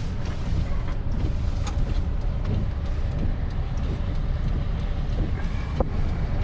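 Truck driving slowly, a steady low engine and road rumble with scattered light rattles and knocks.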